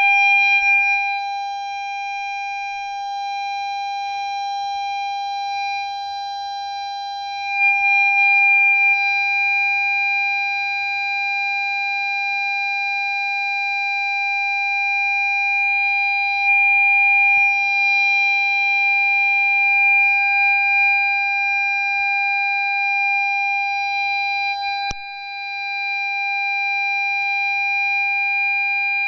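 Ford Fiesta parking-sensor buzzer sounding one continuous, unbroken steady tone. This is the solid tone the sensors give when an obstacle is very close.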